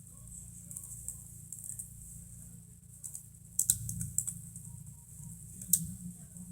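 Typing on a laptop keyboard: scattered key clicks, with a louder cluster of taps a little past the middle and one sharp click near the end.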